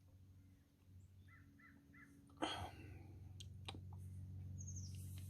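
Faint outdoor bird calls: three short calls in quick succession about a second in, and a high falling chirp near the end. Halfway through comes a short, louder noise, the loudest sound here, followed by a couple of clicks. From then on a low steady hum runs underneath.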